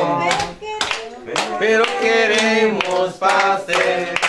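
A group of people singing a birthday song together, clapping along.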